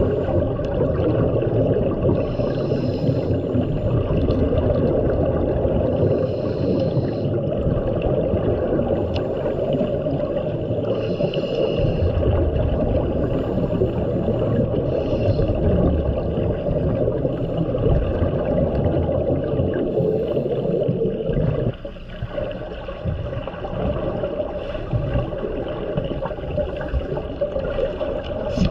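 Underwater sound in a pool: a steady low rush of water noise, with a scuba diver's exhaled bubbles from the regulator coming in short bursts every few seconds. The rush drops noticeably about 22 seconds in.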